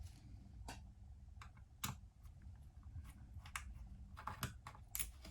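Small irregular clicks and taps of a screwdriver and small tablet parts being handled while the SSD is taken out of an ASUS Flow Z13, with a quick cluster of clicks near the end.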